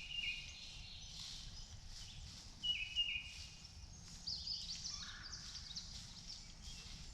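Songbirds singing: a short whistled phrase stepping down in pitch, heard at the start and again near three seconds in, then a burst of quick high chirps about four to five and a half seconds in, over a low steady rumble.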